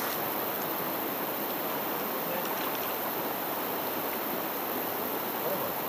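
Steady rushing of a flowing river's current.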